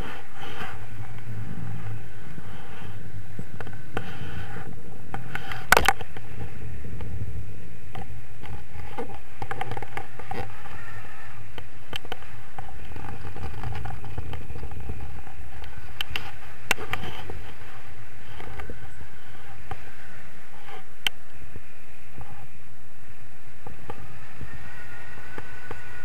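Wind rushing steadily over the microphone of a camera mounted on a tandem paraglider during takeoff and flight, with a sharp click about six seconds in and a couple of fainter clicks later.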